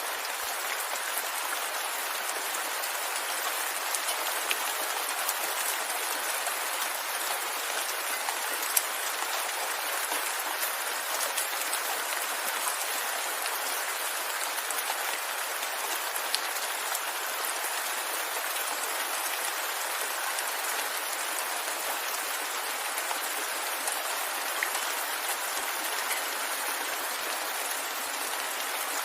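Steady rain falling: an even hiss of rain, with many small drop ticks scattered through it.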